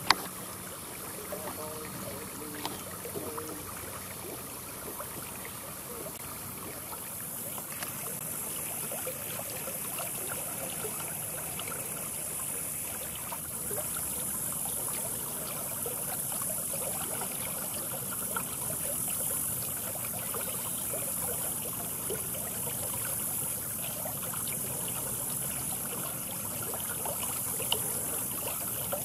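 Steady outdoor background hiss with a constant high-pitched band above it, growing slightly louder about seven seconds in. A single sharp click sounds at the very start.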